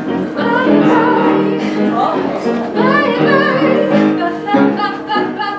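A cabaret show tune playing between verses: instrumental accompaniment with a voice singing without clear words over it.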